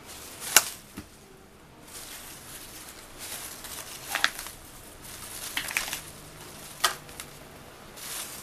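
Rustling and scuffling as a cat bats and grabs at a dangling fabric streamer toy, with three sharp taps spread through.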